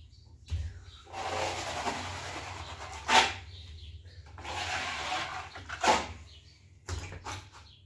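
Steel plastering trowel scraping across a plastered wall in two long strokes, each followed by a sharp knock, then a few lighter taps near the end.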